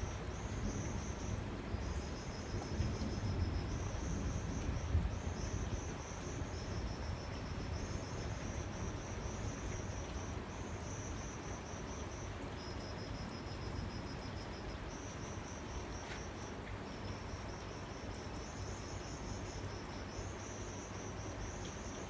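Crickets chirping in high, pulsed trills a second or two long, more than one at slightly different pitches, overlapping and alternating. Under them a low rumble, the tail of distant thunder, dies away over the first few seconds.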